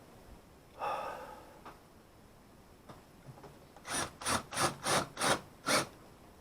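Six quick rasping strokes, about three a second, like a hand saw or file worked back and forth on wood. A short pitched squeak comes about a second in.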